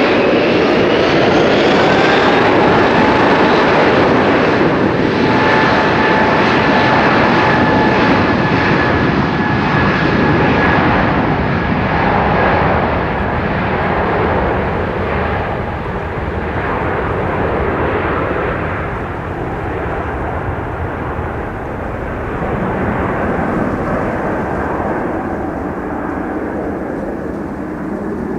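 Boeing 777-300 jet airliner's turbofan engines spooling up, with a whine rising over the first couple of seconds, to takeoff power. A steady loud rush follows that slowly fades and grows duller as the aircraft moves away.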